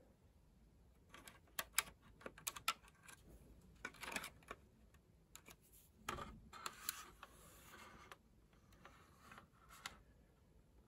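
Handling noise from a plastic scale model aircraft: a quick run of small sharp plastic clicks, followed by short scraping and rubbing sounds as the model is turned in the hand.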